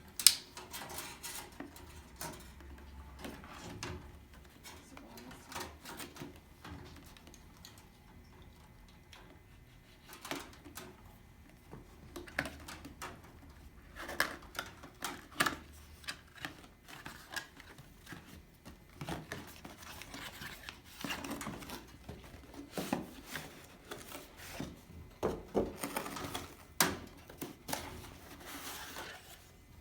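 Hands handling a graphics card's box and packaging: irregular taps, clicks and rustling, with a sharp click right at the start.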